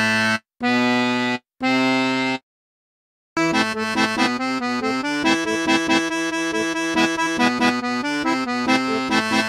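Vallenato button accordion playing the last notes of a C major scale, one held note at a time with short gaps. After about a second's pause it plays a paseo vallenato passage, a melody over rhythmic bass notes.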